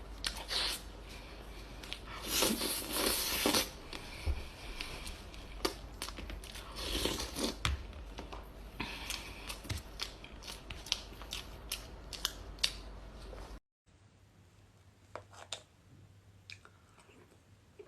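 Close-miked eating sounds: bites and chewing with many sharp clicks and two longer crackly stretches. The sound drops out for a moment near the end and resumes quieter.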